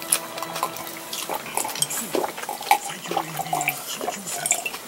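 Eating sounds close to the microphone: wet chewing and mouth noises with small clicks of chopsticks against the dishes, and a few brief low murmured voice sounds.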